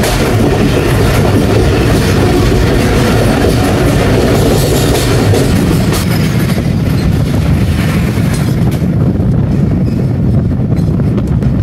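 A Pakistan Railways passenger train running at speed, heard from an open coach door: a steady loud rolling rumble with wheel clatter on the rails. A second train runs close alongside on the next track.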